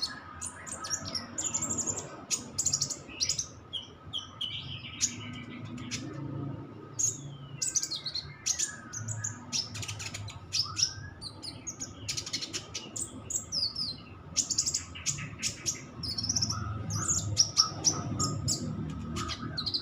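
Kolibri ninja (a sunbird) singing: rapid, high-pitched chirps and fast trill bursts with occasional falling whistles, in the 'tembakan cililin' style of shots copied from the cililin's call.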